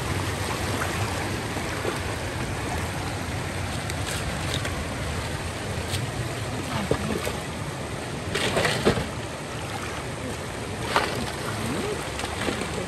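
Steady rush of floodwater flowing, with a few splashes in the water, the loudest about two thirds of the way in.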